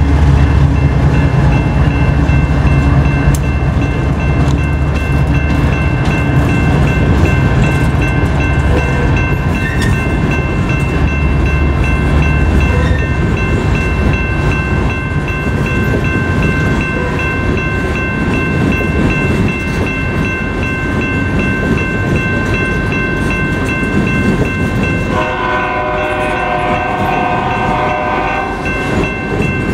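Freight train passing: diesel-electric locomotives rumbling by for the first dozen seconds or so, then loaded freight cars rolling past with a steady rumble and a steady high-pitched squeal from the wheels on the curve. A train horn blows for about three seconds near the end.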